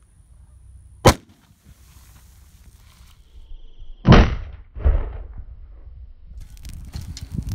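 Propane gopher exploder setting off a charge in a gopher burrow: a sharp crack about a second in, then a loud boom about four seconds in, followed a moment later by a second, weaker thump.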